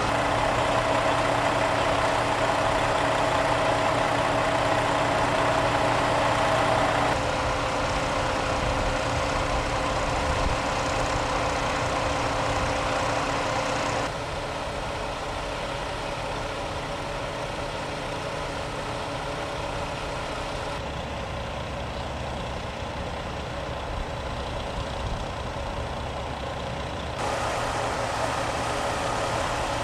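2012 Pierce Velocity fire engine's diesel engine idling steadily, its sound shifting abruptly several times between shots.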